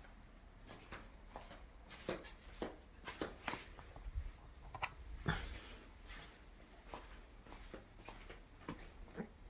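A pet poodle moving about: scattered, irregular light clicks and taps, with no steady rhythm.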